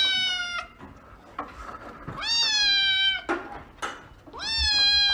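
Young kitten meowing: three long, high-pitched meows about two and a half seconds apart, each rising at the start and then slowly falling in pitch. The first ends about half a second in, and the last starts near the end.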